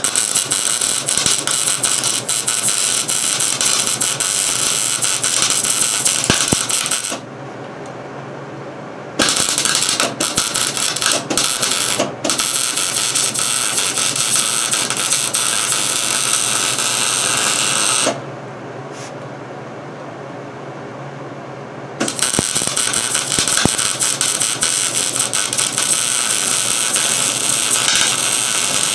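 Arc welder stitch-welding a repair into a steel baler rail: a loud, steady crackling sizzle in four runs of several seconds each, with short pauses between them. The work is laid down as short stitches with breaks to limit heat, so the rail won't pull or warp.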